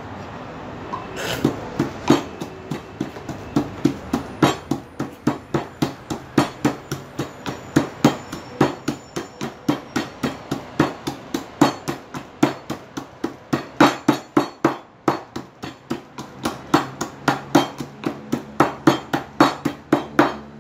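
Kitchen knife chopping on a wooden cutting board: a long run of sharp knocks, about three to four a second, with a few short pauses.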